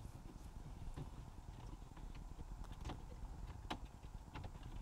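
Faint, scattered clicks and taps of a plastic side trim panel being positioned against a BMW E89 Z4's centre console, over a low steady background rumble.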